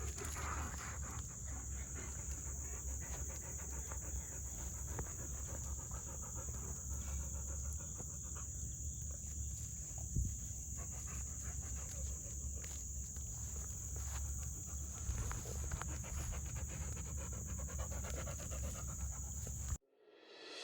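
Dog panting steadily, with a constant high-pitched tone in the background and a few faint clicks. The sound cuts off shortly before the end.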